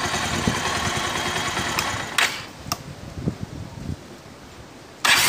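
Carbureted four-stroke motorcycle engine idling, then cutting off about two seconds in with a couple of sharp pops. Near the end it is restarted and catches at once on the first press of the starter, now that its valve clearance has been set.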